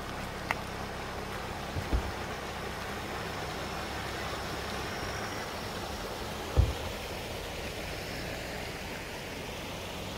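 Steady rush of a shallow, rocky stream flowing under a small bridge, over a faint low hum. Two dull low thumps break in, one about two seconds in and a louder one past six seconds.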